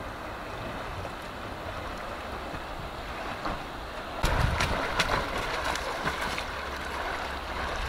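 Water rushing and lapping steadily, with wind on the microphone. About four seconds in, a louder couple of seconds of splashing and knocks.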